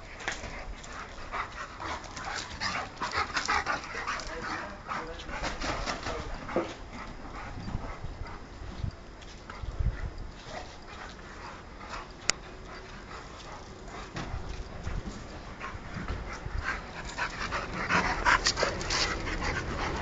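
Dogs panting and whining while they play, an irregular run of short breathy sounds that grows busier and louder near the end.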